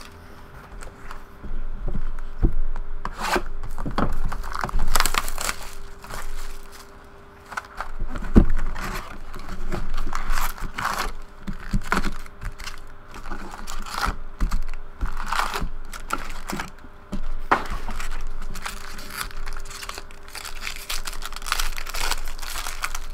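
Foil-wrapped trading card packs crinkling and rustling as they are pulled out of a cardboard box and stacked, with irregular crackles and light taps.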